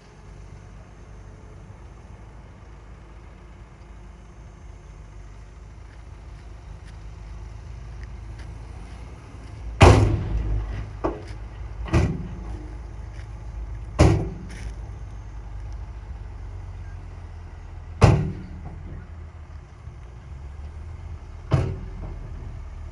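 Heavy diesel earthmoving machinery running with a steady low rumble. In the second half come five or six loud bangs a few seconds apart, the first the loudest.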